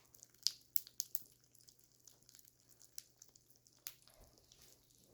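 Rice Krispies crackling and popping in milk: sparse, irregular little snaps and clicks.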